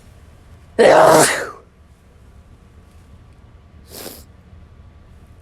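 A person's loud sneeze about a second in, then a short, much fainter breathy sound about three seconds later.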